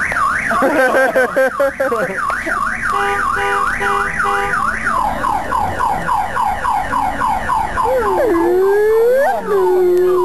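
Electronic car alarm cycling through its tones: a fast warble sweeping up and down, then a quick run of falling chirps, then a slow low swooping wail near the end.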